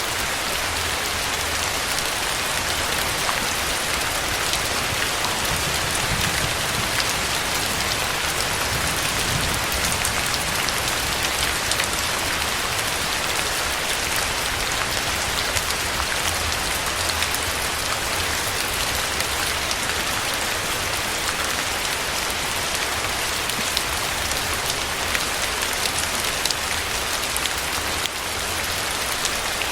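Steady rain falling, a dense even hiss of drops with sharper individual drop hits scattered throughout.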